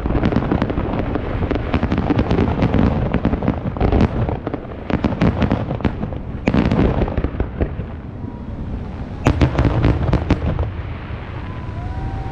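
Fireworks display: dense, rapid salvos of sharp bangs and crackling that thin out about eight seconds in. A last cluster of loud bangs follows about nine seconds in, then the firing dies away.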